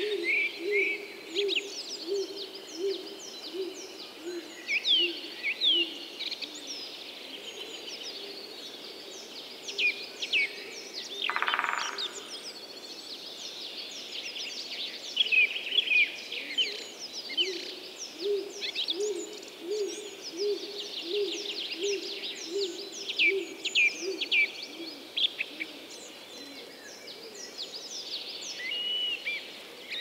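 Woodland chorus of small songbirds, with many quick chirps and trills, over a series of low, evenly repeated hooting notes, about two a second, heard for the first few seconds and again in the second half. A short rasping burst comes about a third of the way through.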